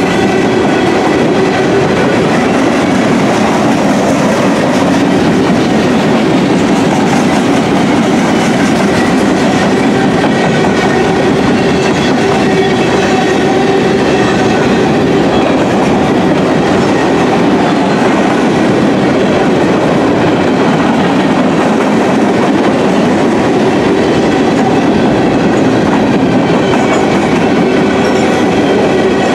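Freight train of steel gondola cars rolling past: a loud, steady noise of steel wheels running on the rails.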